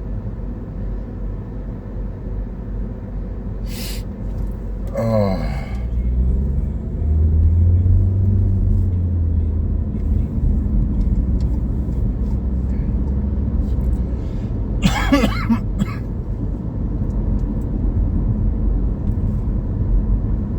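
Steady low rumble of road and wind noise inside a moving car's cabin, with the wind gusting hard enough to shake the car; the rumble swells for a few seconds a third of the way through.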